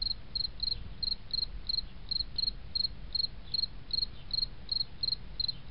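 A cricket chirping at an even pace, about three short high chirps a second, over a low steady rumble.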